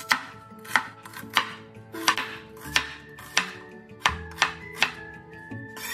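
Chinese cleaver slicing a red onion on a cutting board: a sharp chop each time the blade meets the board, about every two-thirds of a second, coming a little quicker near the end.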